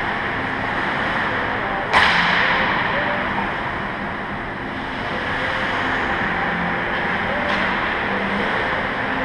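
Ice rink play: a steady scraping hiss of skates on the ice with faint wavering calls. About two seconds in comes a sharp crack of the hockey puck being struck, and a fainter crack follows near the end.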